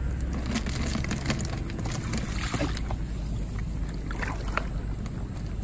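A steady low rumble throughout, with faint scattered clicks and rustles as a wire-mesh fish trap is shaken and emptied of snails and small fish into a plastic bucket.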